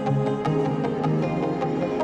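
Background music: soft new-age style instrumental with held notes and a steady run of plucked notes.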